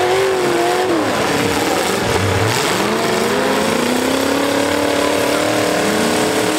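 Demolition derby truck engine revving hard under load: its pitch falls about a second in, climbs again and holds, then drops near the end, over the steady din of other engines in the pack.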